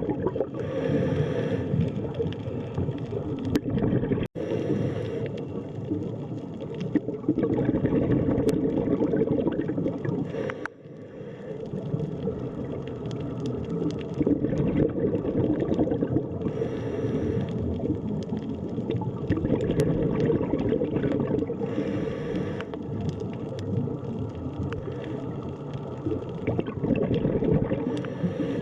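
Underwater ambience: a dense, steady low rush and gurgle of water, with a brighter hiss returning every five seconds or so. It breaks off for an instant about four seconds in.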